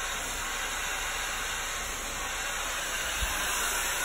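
A steady, even hiss like rushing air or a running machine, with one soft low bump about three seconds in.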